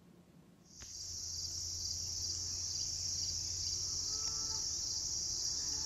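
Steady, high-pitched outdoor insect chorus of crickets, coming in about a second in, over a low steady hum.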